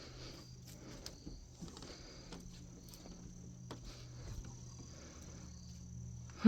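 Crickets chirring steadily as a constant high-pitched tone, with a few faint scattered clicks.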